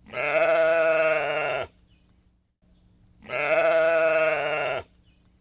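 Sheep bleating twice, two long calls of about a second and a half each with a quavering pitch, a little over a second apart.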